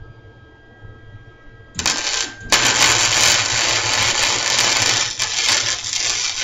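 Electric arc welding on steel: a short burst of arc crackle about two seconds in, then, after a brief break, a longer continuous crackling weld.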